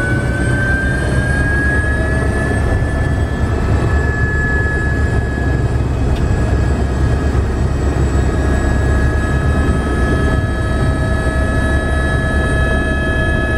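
Light aircraft running steadily and loud: a dense engine roar with a steady whine that climbs slightly in pitch over the first few seconds.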